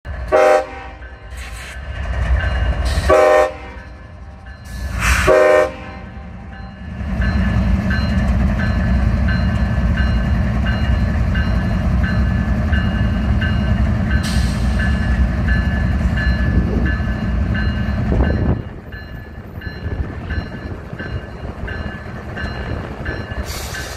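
Diesel locomotive horn sounding three short blasts, then the locomotive's engine rumbling loudly for about ten seconds before dropping off sharply. A bell rings steadily over the engine sound.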